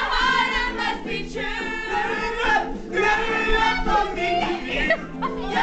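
A group of voices, women's among them, singing together along with a karaoke backing track.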